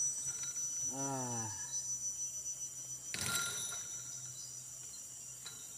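Steady high-pitched insect drone throughout. A man's voice gives a short falling hum about a second in. A single sharp clatter comes about three seconds in, as the rusa stag rears against the wire-mesh fence.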